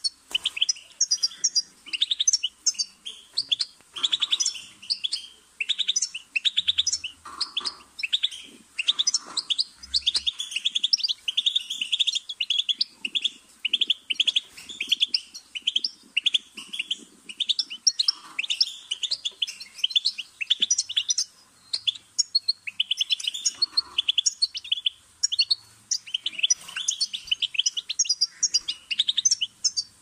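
European goldfinch singing: phrases of rapid, twittering, high trills and notes with short gaps between them, running on almost without a break about halfway through.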